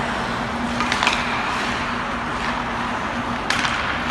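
Ice hockey rink sounds: skate blades scraping and gliding on the ice over a steady low hum, with sharp clacks of hockey sticks on pucks about a second in and again near the end.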